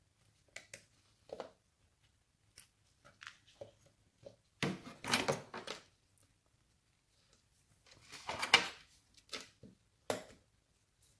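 Irregular clicks, taps and scraping from a Lenovo A526 smartphone being taken apart by hand: a plastic pry tool works the plastic frame loose and the circuit board is lifted out of the housing. The loudest bursts come about five seconds and eight and a half seconds in.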